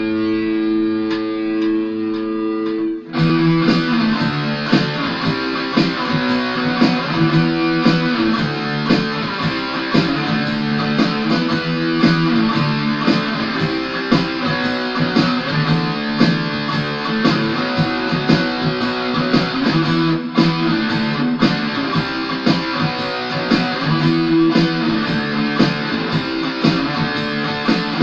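Ibanez AS73 semi-hollow electric guitar played in E: a chord rings out for the first few seconds, then after a short break busy picked riffing carries on.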